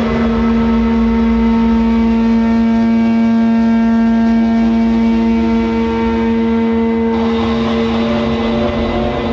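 Sustained electronic drone: one low held tone with a stack of overtones, steady and loud, its upper overtones dropping away about seven seconds in.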